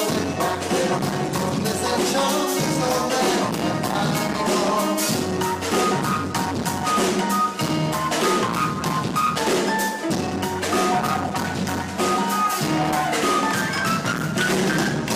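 Live band playing loud through the PA, drum kit prominent with steady snare and kick hits over guitar and keys, picked up rough and crowded by a phone's microphone in a loud room.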